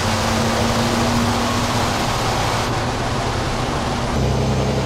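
Racing truck's engine running steadily with a low drone and rushing noise, its tone shifting slightly about three seconds in and again near the end.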